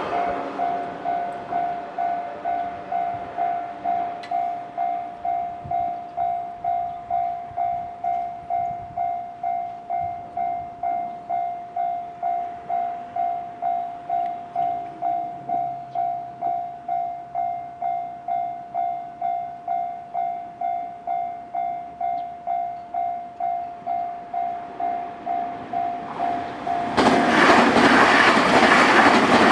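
Japanese railway level-crossing warning bell ringing, a single electronic ding repeated evenly and steadily. About 27 seconds in, a Nankai Main Line train suddenly arrives and passes close by, its loud rush and wheel noise covering the bell.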